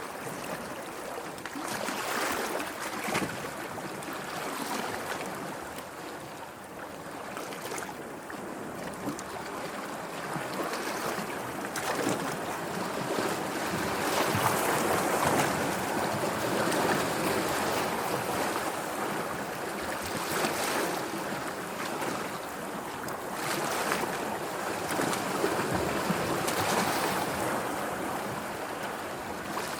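Sea waves washing in and receding, with wind. The wash swells and eases every few seconds.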